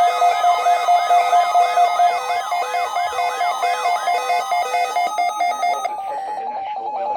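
Electronic emergency alert tone: a steady tone with short repeating beeps under it and a fast, repeating rising siren-like sweep, about two or three sweeps a second. The sweep stops about four and a half seconds in, leaving a pulsing tone.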